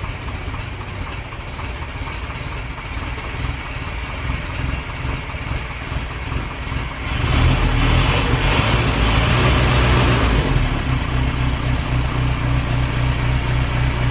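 Morris 8 Series 1 four-cylinder side-valve engine idling on choke, newly running on fuel from its own tank. About seven seconds in the throttle is opened a little and it settles into a faster, louder idle.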